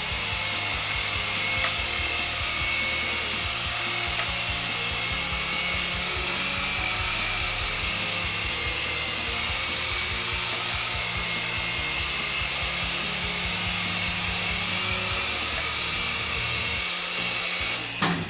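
Syma S107G micro RC coaxial helicopter's small electric motors and rotors whining steadily in a hover. The whine stops abruptly near the end as it sets down.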